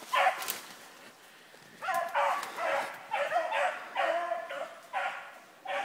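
Rabbit hounds baying while running a rabbit on the trail: a short bay right at the start, a pause of over a second, then a run of short bays about two a second.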